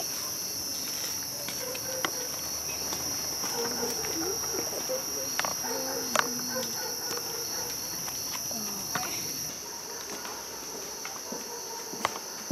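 Crickets trilling steadily in the night air, with scattered footsteps and small clicks over them.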